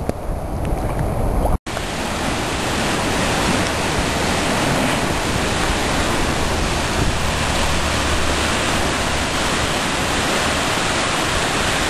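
Wind buffeting the microphone, then, after a sudden cut about a second and a half in, the steady loud rush of fast-flowing typhoon floodwater.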